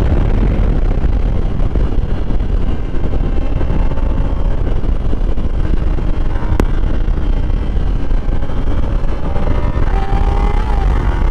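Sport motorcycle's engine running at cruising speed under heavy wind rush on the microphone, with the engine pitch shifting a little near the end.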